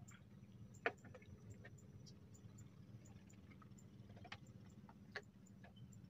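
Near silence: a low steady hum with a few short, sharp clicks, the loudest about a second in.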